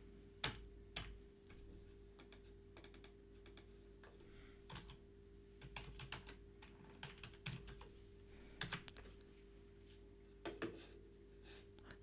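Faint typing on a computer keyboard: a scattered, irregular run of key clicks.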